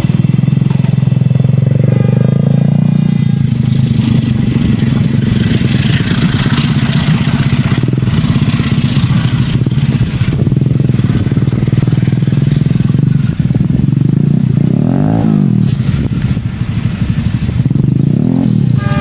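Diesel-electric locomotive running close by, a steady low engine drone. Rolling noise swells in the middle and shifting sweeps come near the end as the train moves past.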